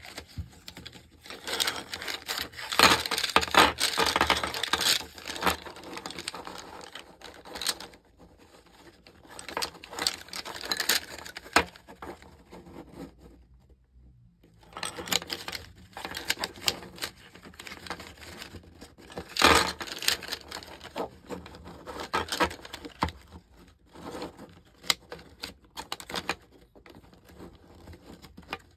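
IKEA Okuvlig bamboo drinking straws clacking and rattling against one another as a bundle of them is gripped and shifted in the hands. It comes as irregular runs of quick clicks, with a brief pause about halfway.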